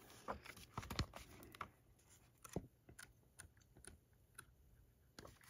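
Near silence broken by a few faint scattered clicks and light rustles from the glossy pages of a ring-bound book being turned and handled.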